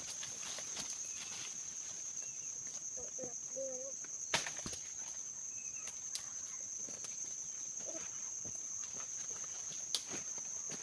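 Insects keeping up a steady high-pitched drone, with a few sharp clicks or snaps scattered through it (the loudest a little past four seconds in) and a short faint call a few seconds in.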